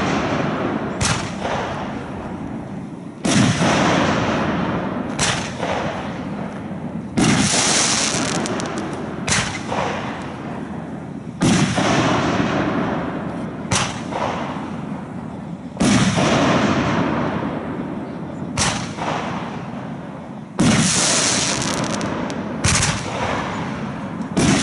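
Aerial firework shells bursting: a loud boom about every four seconds, six in all, each rolling away in a long echo. A shorter, sharper report falls about two seconds before each boom.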